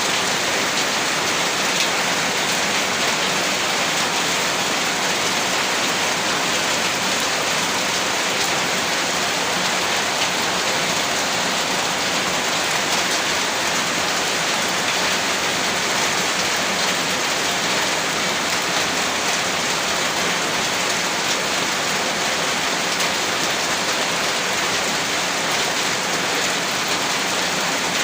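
Steady heavy rain, a dense even hiss of drops that stays the same throughout, with no thunder.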